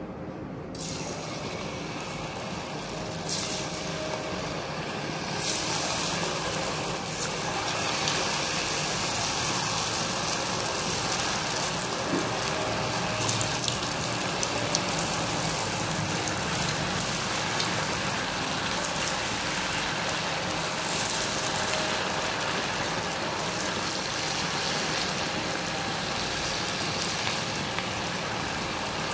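Potato fries deep-frying in a kadhai of hot oil: a dense, steady sizzle of bubbling oil. It starts about a second in, grows louder over the next few seconds, then holds steady.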